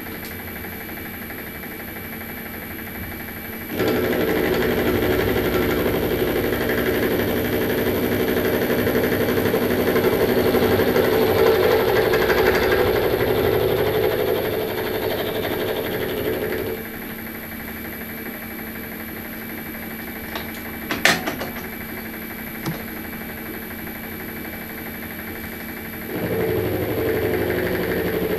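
Milling machine spindle turning a Widax 63 mm five-insert face mill, cutting across the top of an aluminium block. The cut is loudest from about four seconds in to about seventeen seconds, then drops back to the quieter spindle running, with one sharp click a little after twenty seconds. It cuts again, louder, near the end.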